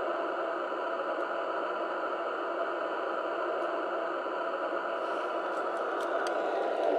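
O-scale RailKing R-21 Redbird model subway train's onboard sound system playing a steady hiss-like hum while the train stands. A few light clicks begin about five seconds in, and the sound grows louder near the end as the train starts off.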